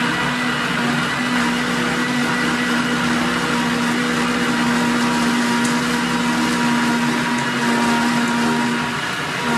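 High-speed countertop blender running steadily at full speed with a steady motor hum, blending almonds, coconut meat and coconut water into a thick purée.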